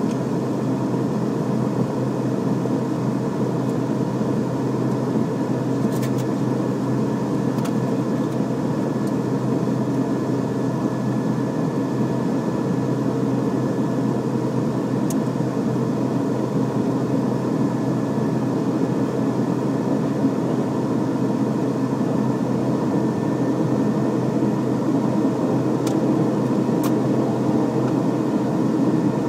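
Twin turboprop engines and propellers of a Beechcraft King Air B200, heard from inside the cockpit, running steadily at low power during the landing rollout and taxi. A droning hum carries a steady whine over it and gets slightly louder near the end.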